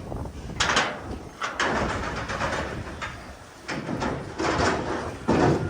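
Cattle being loaded onto a semi livestock trailer: irregular bangs, clattering and scraping of hooves and metal, in several loud bursts.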